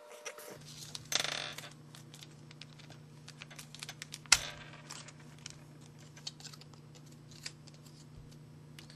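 Handling of a small plastic package of fingerboard wheels: scattered light clicks and rattles, with a short crinkle about a second in and one sharper click near the middle. A steady low hum sits underneath from about half a second in.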